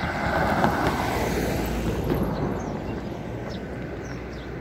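An SUV driving past on a paved road, its tyre and engine noise swelling to a peak about one to two seconds in, then slowly fading away.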